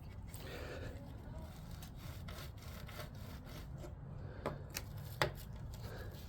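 Hand tools scraping and rubbing on the rusted compressor mounts of a window air conditioner, with a few sharp metallic clicks about four and a half to five seconds in.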